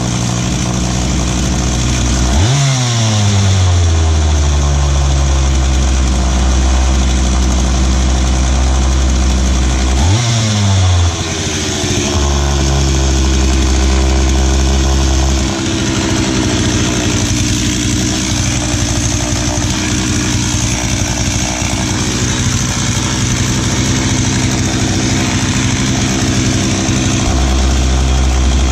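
McCulloch Mac 3516 45 cc two-stroke chainsaw engine idling, revved briefly twice, each time rising sharply and falling back to idle, while its carburettor is adjusted with a screwdriver. About halfway through, the idle note changes and stays changed until near the end.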